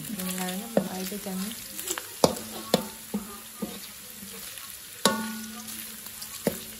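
Diced pork sizzling in hot oil in a metal wok while a metal spatula stirs it, scraping and knocking against the pan. The knocks come every second or so, loudest about two and five seconds in, with the wok ringing after the strongest ones.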